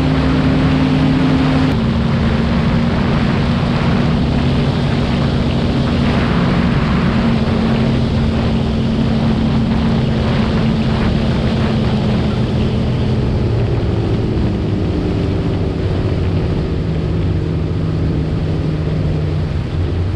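Bass boat outboard engines running at high speed, about 60 mph, over a heavy rush of wind and water. The engine pitch dips slightly about two seconds in and drops lower in the last few seconds.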